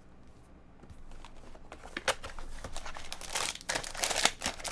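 Plastic packaging crinkling and rustling in a run of short crackles as it is handled, starting about a second and a half in and getting busier toward the end.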